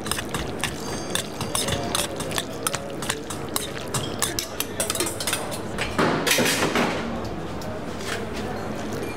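Metal spoon clinking and scraping against a stainless steel bowl as pasta is tossed, a fast, dense run of clicks for about the first five seconds. About six seconds in comes a brief, louder rush of noise.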